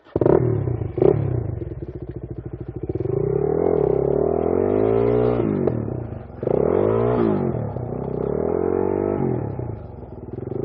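Suzuki DRZ400S single-cylinder four-stroke dirt bike engine, coming in suddenly with a couple of sharp knocks, then revved up and down several times. The rear tyre is spinning in mud as the rider tries to get the bike unstuck.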